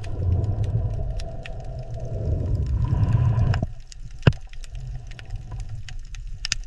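Underwater ambience: a low, steady rumble scattered with sharp clicks, one louder click about four seconds in, and a faint held tone in the first half.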